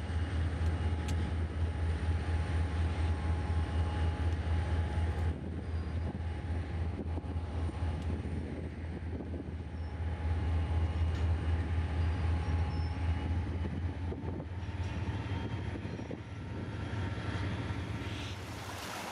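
Diesel freight train on the line, with a steady, pulsing low engine rumble and rail noise over it.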